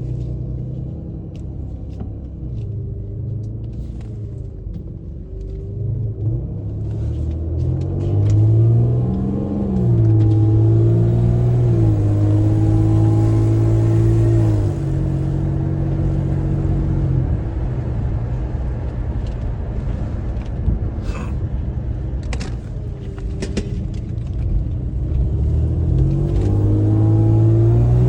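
Infiniti G35's VQ35HR V6 on its stock exhaust, driving and accelerating: the engine note rises about eight seconds in, holds steady for several seconds, drops back, then rises again near the end.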